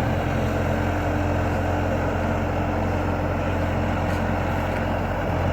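Skid steer loader's engine running steadily as the machine drives, a constant low drone.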